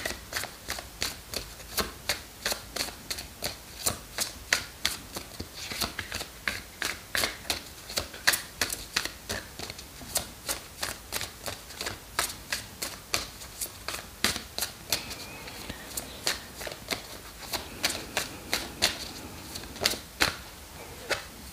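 A deck of large oracle cards being shuffled by hand, a steady run of soft card slaps and clicks at about three a second.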